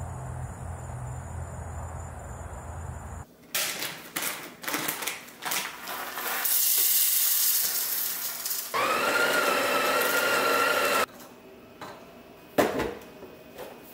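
A Breville espresso machine's built-in grinder grinding coffee beans for about four seconds in the middle, turning into a steady whine in its second half. Before and after it come clicks and knocks of handling the portafilter, with one sharp knock near the end, and the first three seconds hold a steady low hum.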